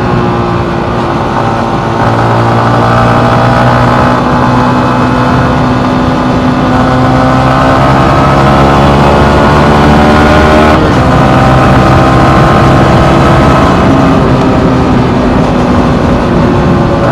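Yamaha MT-15's single-cylinder engine running under way. Its pitch sags at first, then climbs slowly as the bike accelerates, and it breaks briefly about eleven seconds in for a gear change before pulling on.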